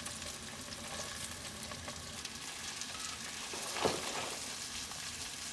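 Chopped onion sizzling as it fries in hot coconut oil with whole spices and curry leaves, stirred in the pan, with one sharp knock of the spoon about four seconds in.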